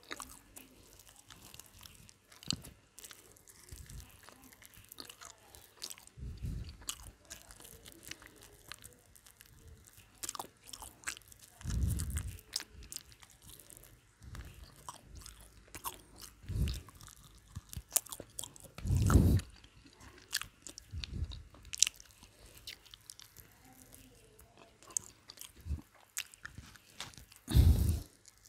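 Close-up mouth sounds of someone biting and chewing cold McDonald's fried chicken: many short wet clicks and crunches, with a few louder low thumps every several seconds.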